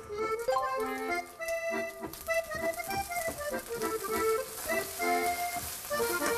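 Background music: a melody of short held notes changing every fraction of a second, in an accordion-like tone.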